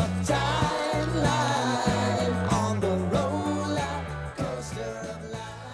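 Background pop-rock song with a stepping bass line and a singing voice, fading out over the last couple of seconds.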